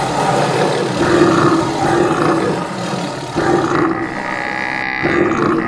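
Cartoon stampede sound effects: four animal calls, each about half a second long and about one a second apart, over a steady noisy din of the herd.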